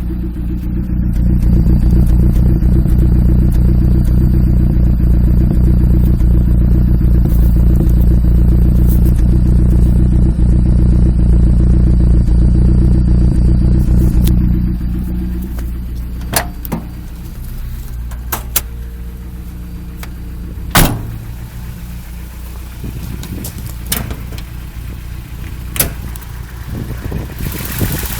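Toyota 22R-TE turbocharged four-cylinder engine running with a rough idle. It runs louder and steady for about thirteen seconds, then drops back to a quieter idle, with a few sharp clicks over the rest of the stretch.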